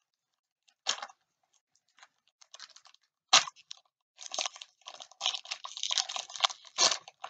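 Wrapper of an AFL Teamcoach trading-card pack being torn and crinkled open by hand: scattered crackles, a sharp snap about three and a half seconds in, then dense crinkling for the last three seconds.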